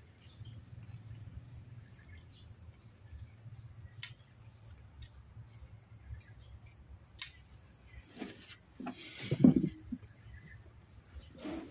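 Insects chirping in a steady, quickly repeating pattern. Over it come a few sharp clicks and a louder patch of knocks and rustles about nine seconds in as the speargun is handled.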